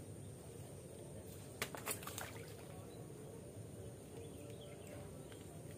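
Quiet pond-side outdoor ambience: a steady low rumble, with a few sharp clicks close together about one and a half to two seconds in.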